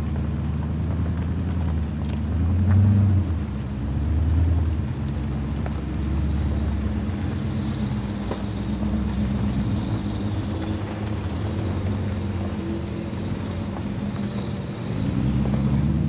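SUV engine at low revs, crawling slowly over a rocky trail, with a steady low hum. It swells twice, at about three seconds and about four and a half seconds in.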